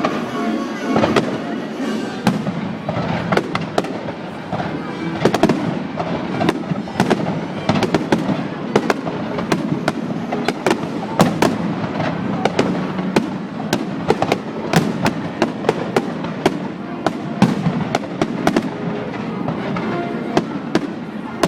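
Fireworks display going off in quick succession: a dense run of sharp bangs and crackles, often several a second, over continuous music.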